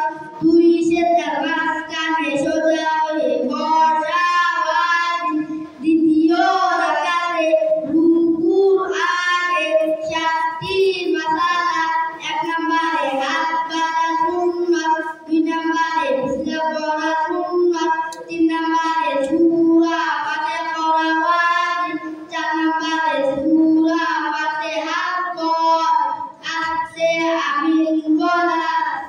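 Two boys singing together into microphones, unaccompanied, in long sung phrases with brief breaks for breath.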